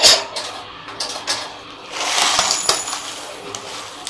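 A glass bowl clinks as it is set down. About two seconds in, dry basmati rice grains pour into it with a short rattling hiss and small clicks.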